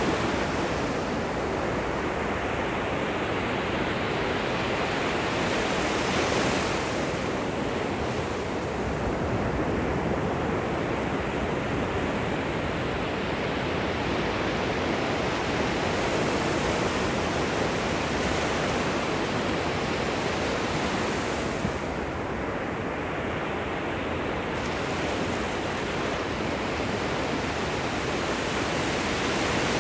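Gentle ocean surf washing onto the shore: a steady rush of water, with small waves breaking a few times, adding brief hissy swells about six seconds in, around eighteen seconds and near the end.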